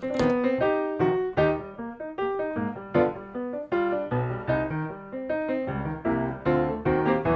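Background music: a piano tune played in quick, even notes.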